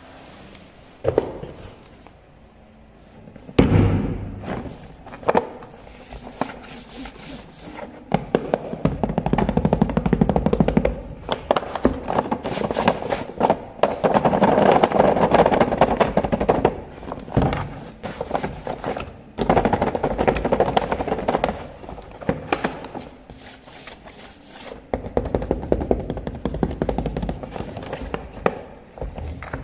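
1:18 scale battery-powered RC toy car driving in bursts: its small electric motor and gears give a fast rattling buzz that starts, stops and swells as it speeds up and turns, with a few sharp knocks in between.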